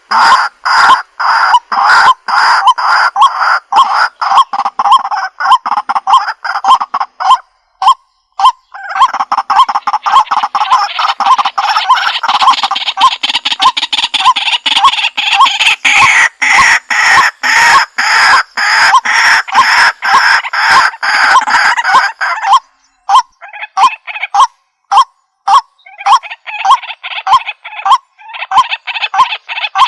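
White-breasted waterhen (kuruk-kwak) calling loudly: a rapid, relentless series of harsh repeated notes, about three a second, with brief breaks about eight seconds in and again after about twenty-three seconds.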